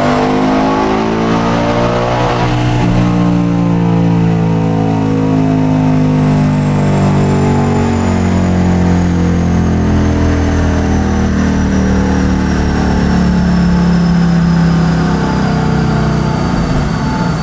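Ford Mustang Dark Horse's 5.0-litre V8 running loud under load on a chassis dyno during a power pull. Its pitch climbs for the first two seconds or so, then holds and slowly sinks, with a high whine rising and falling alongside it.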